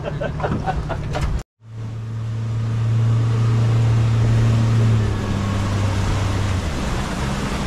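Engine running steadily with a low hum that drops slightly in pitch about five seconds in, as if throttling back.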